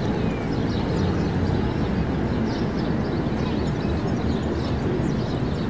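Steady low rumble of city traffic, with many small birds chirping in quick, scattered calls from the trees.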